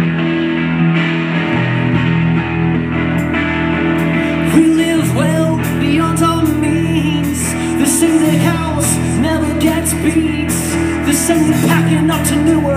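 Live rock band of electric guitar, electric bass and drum kit playing, with the full drum kit and cymbals crashing in about four seconds in. A man sings over the band in the later part.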